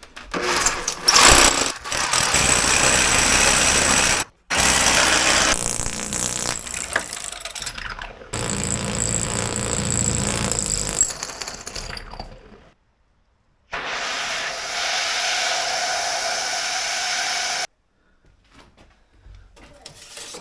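Power drill boring through a rebar-reinforced concrete basement wall for the heater's intake hole. It runs loudly in four stretches of a few seconds each, and each one cuts off suddenly.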